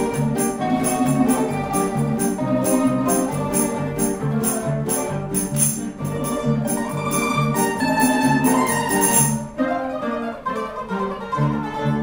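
A plucked-string ensemble of mandolins, classical guitar and bass guitar playing, with a tambourine jingling in a steady rhythm; the tambourine drops out briefly near the end.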